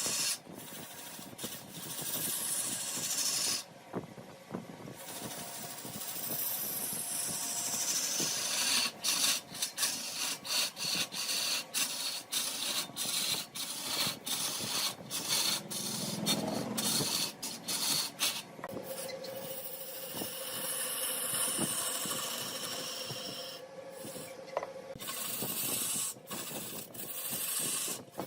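A turning tool scraping into spinning wood on a large wood lathe: a steady rasping hiss, broken by many short gaps through the middle.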